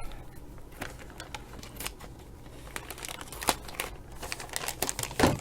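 Packaging crinkling and rustling as a wrapped package is opened by hand, with scattered sharp crackles; the loudest come about three and a half seconds in and near the end.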